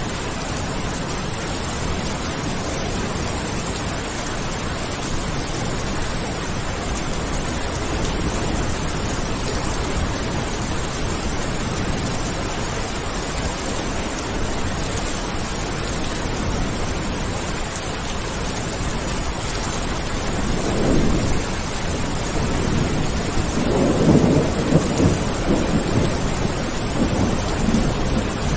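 Steady rain falling, an even hiss, with thunder rumbling in about two-thirds of the way through and a longer, louder roll of thunder near the end.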